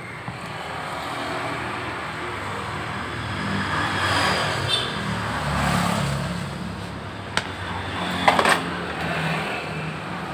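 Yamaha Soul GT scooter's single-cylinder engine running with its CVT cover removed, picking up briefly about four seconds in, with a rough 'klotok klotok' knocking like a bad connecting rod. The noise is still there, and louder, with the CVT open, which points to the CVT side. A few sharp clacks come near the end.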